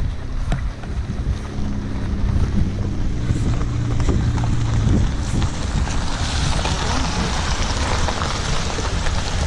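Wind rumbling on the microphone, with a low steady hum for the first few seconds and a hissing rush that grows louder in the second half.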